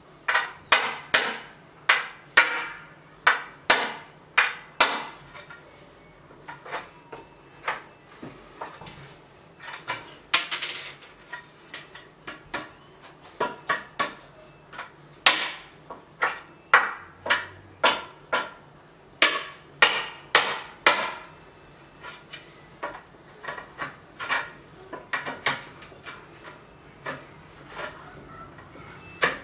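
Claw hammer striking iron nails in a wooden plank to knock them out: runs of sharp knocks about two a second, with short pauses between runs. The loudest knocks come in the first few seconds.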